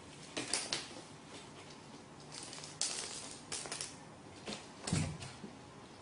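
Scratchy rustling in several short spells, with a dull thump about five seconds in.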